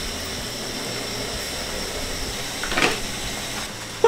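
Potato chunks, garlic and rosemary sizzling in hot oil in a frying pan over a gas burner: a steady frying hiss, with one brief louder burst just before three seconds in.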